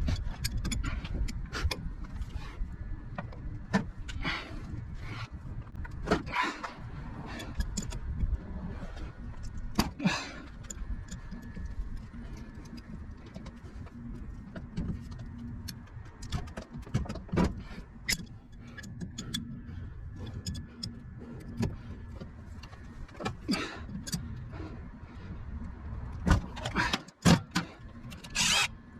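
Wrenches and loose metal parts of a semi-hermetic compressor clinking and knocking at irregular intervals while bolts are worked loose, over a steady low rumble.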